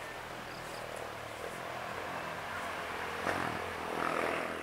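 Steady outdoor background hiss over a faint low hum, with a brief louder rustle about three seconds in.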